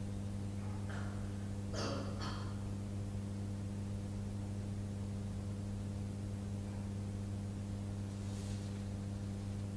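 Steady low electrical hum from the church's microphone and sound system during a silent pause, broken about two seconds in by a couple of short, soft noises.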